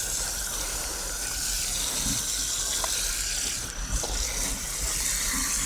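Steady hiss with a faint low hum and a few light clicks, the interference noise of a new microphone that is not working well.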